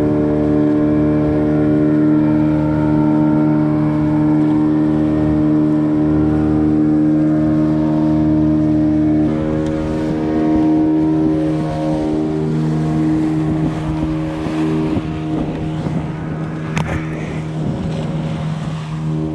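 Boat engine running steadily with an even drone; about halfway through its pitch shifts a little and it then runs slightly quieter. A short click sounds near the end.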